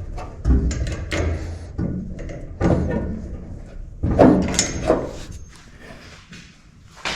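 A series of sharp metal knocks and clanks as a fire extinguisher mount and hose clamps are handled and fitted on a roll bar. The sound goes quieter late on, then one sharp knock comes at the very end.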